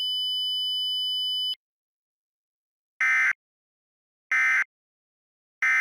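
Emergency Alert System tones. A steady electronic alert tone cuts off about a second and a half in, then three short identical data bursts follow about a second apart: the SAME end-of-message code that closes an EAS alert.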